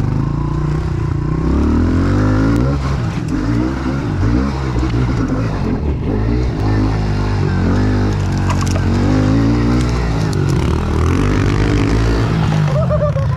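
Honda CRF110F pit bike's small single-cylinder four-stroke engine ridden hard, its revs climbing and dropping over and over as the throttle is worked.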